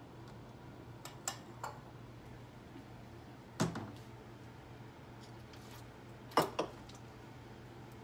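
Kitchen dishes clattering as a bowl is fetched and set down on the counter: a few short knocks, the loudest about three and a half seconds in and two close together past six seconds, over a steady low hum.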